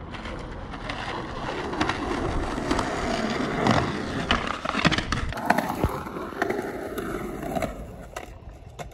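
Skateboard wheels rolling over pavement, with several sharp clacks of the board about two to five seconds in.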